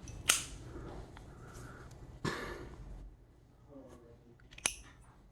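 Small metal handling sounds from a Zippo lighter being put back together after refilling: a sharp click, a short sliding scrape about two seconds in, and another sharp click near the end.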